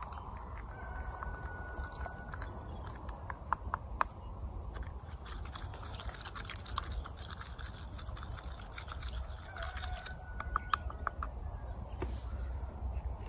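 A wooden stick stirring wet soil slurry in an enamel mug: gritty scraping with scattered sharp clicks as the stick knocks against the mug.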